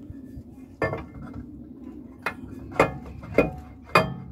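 Rover 75 brake disc with built-in handbrake drum clanking against the hub and handbrake shoes as it is pushed on: five sharp, ringing metallic knocks, one about a second in, then four about half a second apart. The drum won't go on because the shoes need readjusting.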